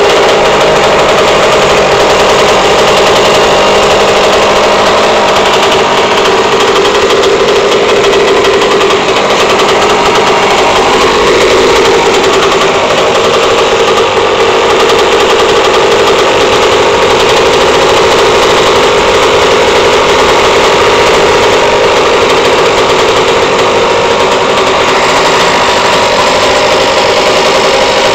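Goped GP290 two-stroke engine with an expansion-chamber exhaust running steadily and loudly, with a slight rise and fall in pitch about a third of the way in.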